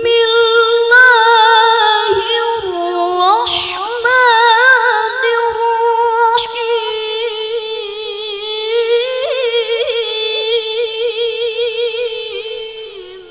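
A woman reciting the Quran in the melodic tilawah style into a microphone, singing one long ornamented phrase held mostly on a sustained high note with fast vibrato. The pitch dips and climbs back a few seconds in, and the voice fades out near the end.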